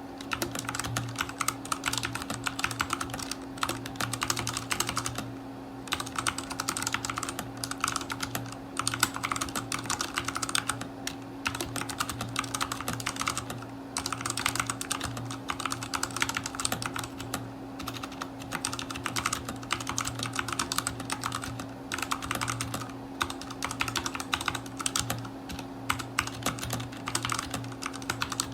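Typing on a Redragon K530 (Draconic) mechanical keyboard with brown tactile switches: a fast, continuous run of key clicks with a couple of brief pauses. A faint steady low hum sits underneath.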